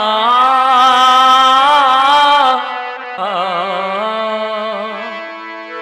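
A male voice singing a wordless opening alaap: two long melodic phrases with a wavering vibrato, over held instrumental notes that carry on alone near the end.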